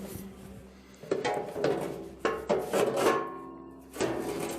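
Background music: a run of plucked string notes starting about a second in, each ringing and fading.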